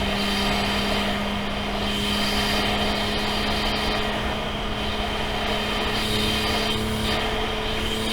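Modified Toyota Supra A90's engine running at a steady, almost unchanging speed, heard from inside the cabin, over a hiss of tyre and road noise on a wet track.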